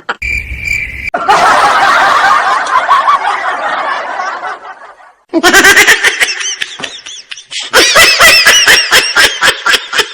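Laughter in two long stretches, the second a rapid string of short ha-has, with a brief pause about five seconds in; a short steady tone sounds at the very start.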